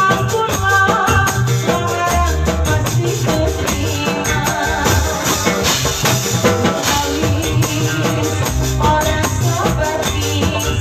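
Band music: a bass line and melody instruments with a hand-shaken tambourine jingling in a busy, steady rhythm.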